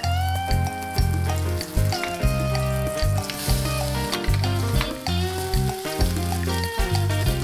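Seafood and chive pancake (haemul buchujeon) sizzling in oil in a nonstick frying pan while a spatula presses and works it, under background music with a steady, rhythmic bass line.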